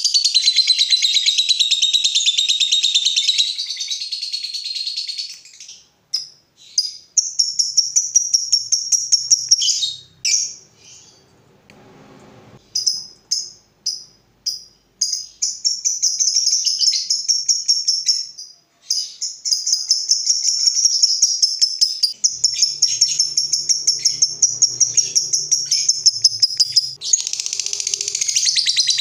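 Lovebirds giving the long, rapid chattering trill called 'ngekek': high-pitched runs of fast pulses that last several seconds each, with short breaks between them. A long ngekek like this is the prized call of a lovebird in full song.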